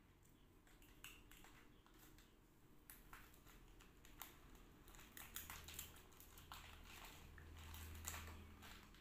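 Faint crinkling and crunching of wafer roll biscuits and their plastic wrapper as they are handled and eaten. The scattered crackles grow more frequent after about three seconds, with a faint low hum in the second half.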